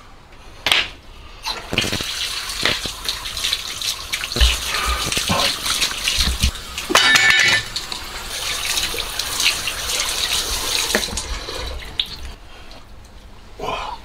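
Tap water running and splashing as raw legs of lamb are rinsed under a kitchen faucet, with a few knocks from the meat being handled. The water stops a little before the end.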